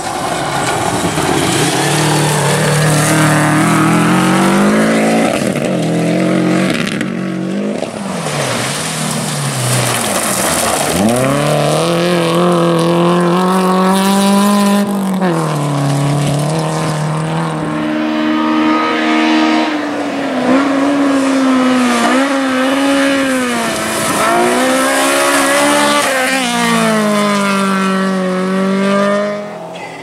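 Rally car engine on a gravel stage at full throttle, its pitch climbing and dropping again and again as it shifts gears and lifts off for corners, with gravel spraying from the tyres. The sound falls away sharply near the end.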